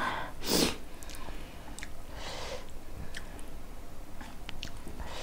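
Close-miked chewing of mouthfuls of Shin Ramyun noodles, with small wet clicks of the mouth. There is a short, louder noisy burst about half a second in.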